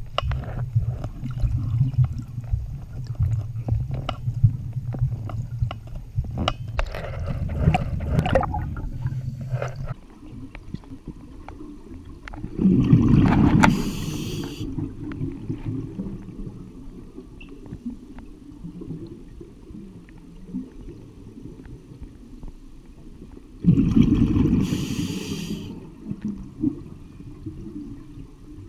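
Underwater breathing of a scuba diver on an Apeks regulator: two loud rushes of exhaled bubbles from the regulator exhaust, about eleven seconds apart. Before them, for the first ten seconds or so, a low rumble with scattered clicks.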